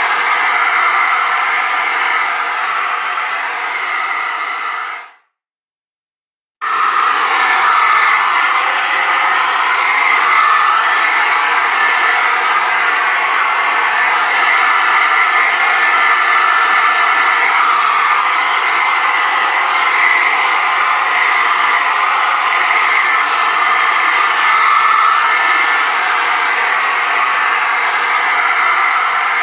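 Hair dryer running steadily with a humming, buzzing whir. About five seconds in it fades out quickly, and after a second and a half of silence it comes back on abruptly and keeps running.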